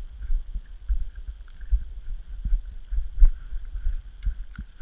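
Irregular muffled low thumps and rumble from a moving GoPro, its microphone knocked about as the wearer shifts in the snow, with a few sharp clicks in the second half.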